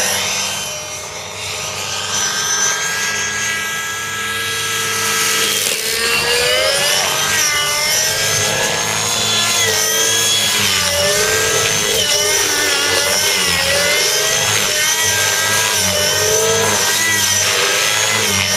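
Nitro RC helicopter's Gaui 37SZH glow engine with muffler, running at high rpm. Its pitch holds steady for the first few seconds, then from about six seconds in rises and dips rapidly and repeatedly as the helicopter is flown through hard 3D manoeuvres.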